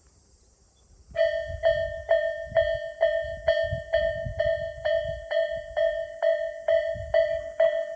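Electronic level crossing warning bell of the Isesaki type, starting suddenly about a second in and ringing in even strikes about twice a second: the crossing is activating for an approaching train. A low rumble runs underneath.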